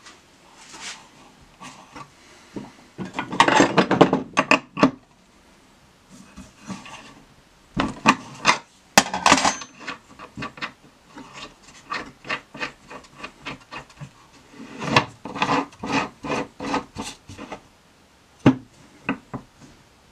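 Hands working the chuck of a stopped wood lathe to free a freshly turned wooden piece: irregular clusters of short scraping and rubbing strokes with sharp clicks of wood and metal, in three main bursts with quieter handling between.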